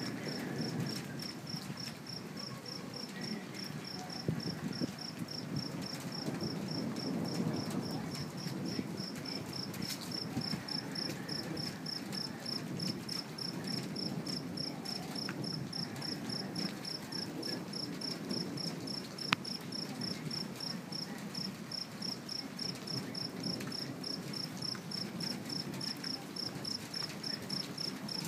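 Crickets chirping steadily, about three evenly spaced chirps a second, over a low steady rumble of background noise, with one sharp click about two-thirds of the way through.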